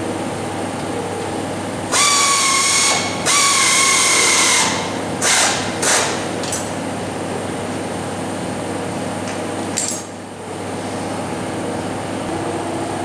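Pneumatic tool tightening the engine-bracket bolts: two runs of about a second each with a steady whine, followed by a few short clicks and knocks. A steady hum runs underneath.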